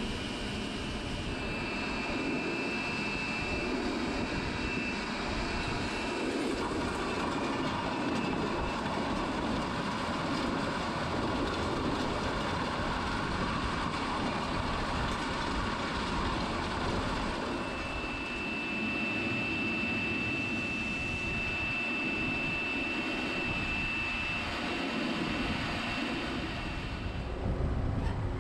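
John Deere 6R 215 tractor's six-cylinder diesel running steadily while pulling a no-till seed drill. A thin, high, steady whine comes in over the engine twice, for several seconds each time.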